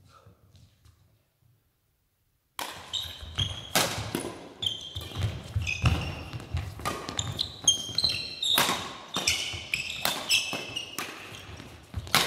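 Badminton doubles rally in a sports hall: sharp racket hits on the shuttlecock, and shoes squeaking and thudding on the hall floor, ringing in the large room. Near silence for the first two and a half seconds, then the rally sounds start abruptly.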